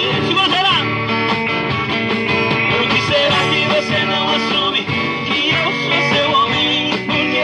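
Live band playing an instrumental passage of a romantic song, with guitar, between sung verses.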